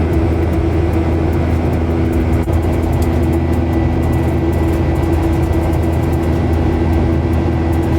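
Steady, loud drone of a vehicle heard from inside it, with a strong low hum and a few constant tones above it.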